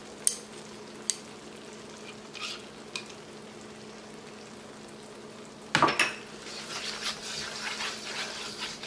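A utensil scraping and clicking against a wok while stirring vegetables in a thickened sauce, over a soft sizzle. A few light clinks come in the first three seconds, a louder clatter about six seconds in, then steady stirring.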